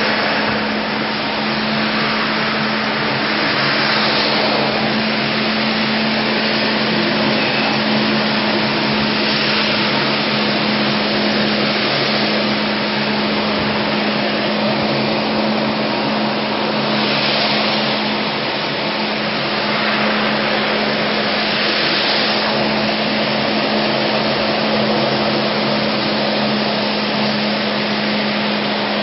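Ride-on floor-cleaning machine running steadily: a constant rushing drone of its motor and suction, with a steady hum underneath that never changes pitch.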